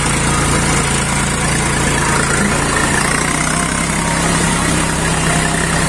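Tractor diesel engine running steadily, with a slight rise in engine speed about halfway through.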